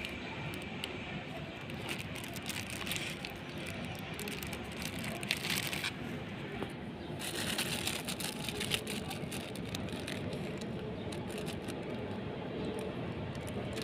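Steady outdoor background noise, a low rumble and hiss, with scattered faint clicks and crackles.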